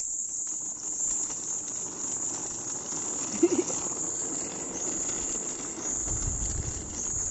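Steady high-pitched chirring of crickets, with a low rumble joining in near the end.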